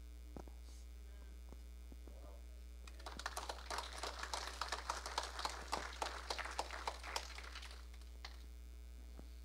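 Audience applause, a dense patter of claps starting about three seconds in and dying away about five seconds later, over a steady electrical mains hum.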